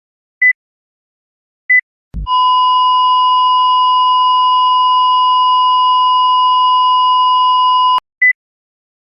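Cardiac monitor sound effect: single high beeps about every 1.3 seconds, then a short low thump about two seconds in, followed by the continuous flatline tone of asystole for about six seconds. The tone cuts off suddenly and the regular beeping resumes.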